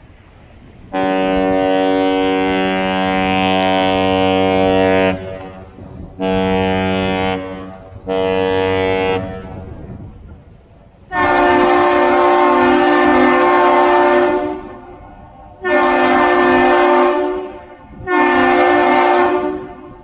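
The Edgar B. Speer's ship whistle sounds the captain's salute, one long and two short blasts of a deep, steady horn. A second, brighter horn then answers with the same long-short-short pattern, the return salute typical of the Duluth Aerial Lift Bridge.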